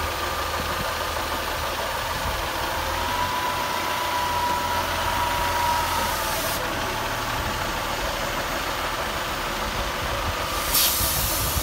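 Pacer diesel multiple unit moving slowly past, its underfloor diesel engines running with a steady low throb. A thin high whine is held for a few seconds midway, and a loud hiss of air comes near the end.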